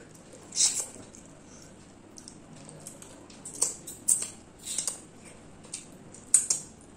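Close-up eating sounds of chicken curry and rice eaten by hand: about six short smacks and clicks of chewing and the mouth, spaced irregularly, with a pair near the start and the rest scattered through the middle and end.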